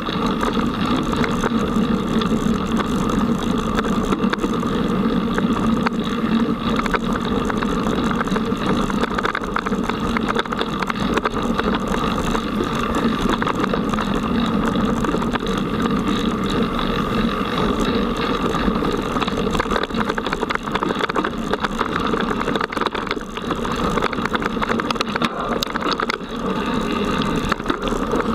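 Mountain bike rolling along a dirt forest trail, heard through a camera mounted on the bike: a steady rumble of knobby tyres on the ground and vibration of the bike and mount.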